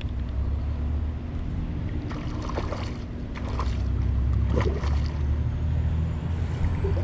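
Steady low drone of machinery with a constant hum, and scattered clicks and handling rustles.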